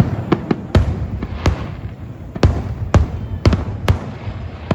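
Aerial fireworks shells bursting during a finale: about ten sharp booms in quick, irregular succession, each trailed by a low rumbling echo.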